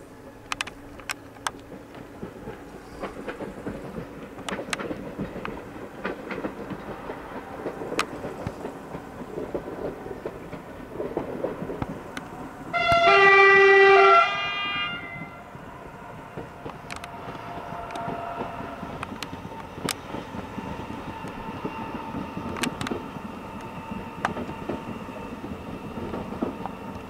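Horn of the Pesa Elf electric multiple unit EN96-001 sounding one loud blast of about a second and a half, about halfway through, as the train moves off from the stop. Before and after the blast the train is heard running, with a steady hum and scattered clicks.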